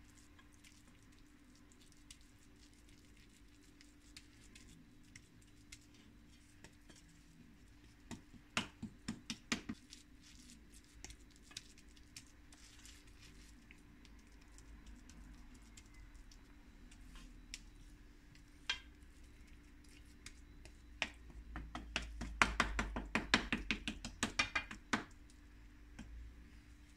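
A spatula tapping and scraping against a steel plate while pressing and smoothing sticky coconut burfi mixture into shape, in quick clusters of clicks: a short run about a third of the way in and a louder, denser run near the end, over a faint steady hum.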